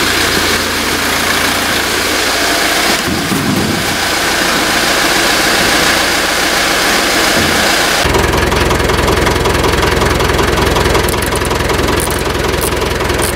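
A motor running steadily in the background, its sound changing abruptly twice at edit cuts. Near the end come quick clicks of a socket ratchet working a bolt.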